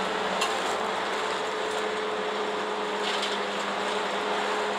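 Isuzu city bus running at a steady speed, heard from inside the cabin: a constant engine hum with two level tones under tyre and road noise.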